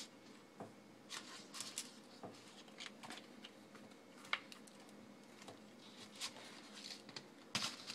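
Faint rustling and scattered light taps of a soft flour tortilla being folded and rolled up by hand on a paper plate.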